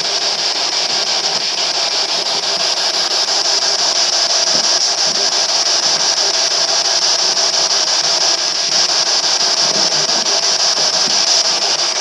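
Handheld spirit box radio sweeping through stations, giving a steady hiss of radio static.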